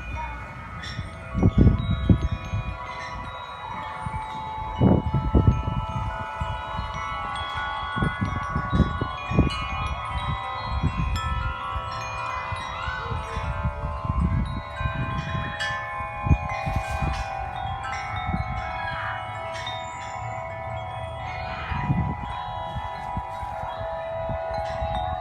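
Several large tuned metal wind chimes ringing continuously in gusty wind, many overlapping sustained tones from different chimes. Low rumbling surges of wind buffet the microphone again and again, and these are the loudest moments.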